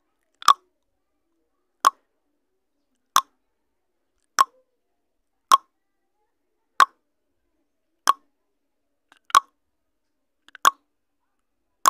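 Puzzle countdown timer sound effect: ten short, sharp pops, one about every 1.3 seconds, with silence between them.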